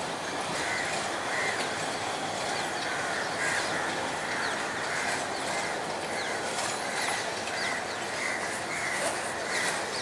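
Diesel multiple unit (power set) train rolling slowly through pointwork with a steady rumble of wheels and engine. Birds call repeatedly over it.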